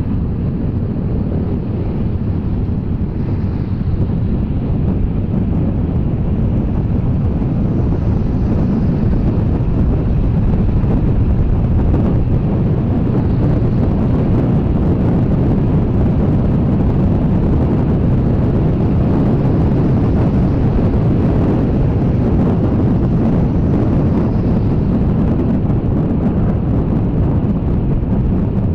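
Steady wind rushing over a helmet-mounted camera microphone while riding a Honda Scoopy 110 scooter, with the scooter's engine and tyre noise blended underneath. It grows a little louder over the first several seconds as the scooter picks up speed, then holds steady.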